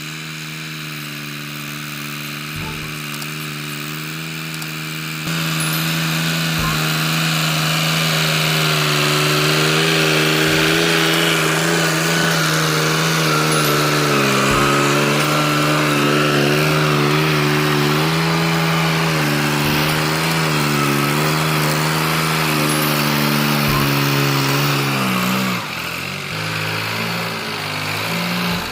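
Background music, with a melody gliding over a steady drone, that gets louder about five seconds in and breaks off near the end.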